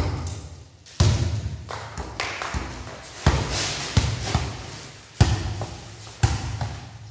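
A basketball bouncing on a tiled floor, about once a second and not quite evenly, each thud ringing on briefly in a large echoing room.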